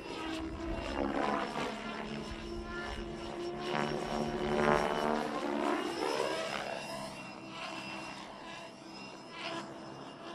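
Radio-controlled aerobatic helicopter flying overhead. The whine of its rotor and motor sweeps up and down in pitch as it manoeuvres and passes, loudest about four to five seconds in, then fading a little.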